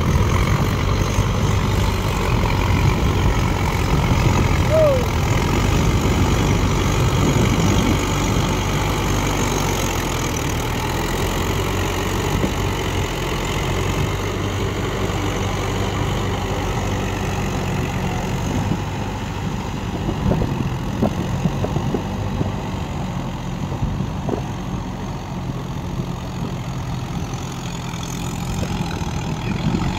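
Mahindra Tech+ 585 DI tractor's four-cylinder diesel engine running steadily under load as it pulls a rotavator through flooded paddy mud, getting gradually quieter as the tractor moves away.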